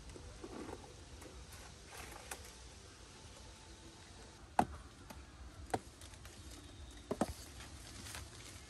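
A few sharp knocks over a faint background. The loudest comes about halfway in, another a second later, and a quick pair of knocks near the end, with fainter ticks between.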